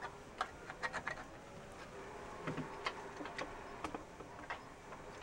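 Faint, irregular clicks and rustles of hair being handled and a plastic automatic hair curler (Conair Curl Secret) being brought into place, over a faint steady hum.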